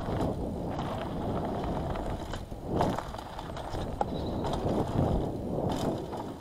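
Mountain bike riding fast down a dirt trail: a continuous rough rumble of tyres and rattling bike, broken by several sharper knocks from bumps in the second half.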